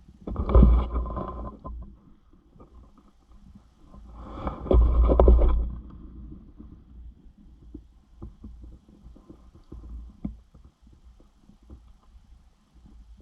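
Wild turkey gobbling twice, each a rattling call of about a second and a half, the second starting about four seconds in.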